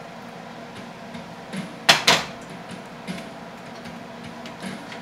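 Metal skillet set down on a glass-top electric stove: two sharp knocks close together about two seconds in, with a few lighter clicks around them.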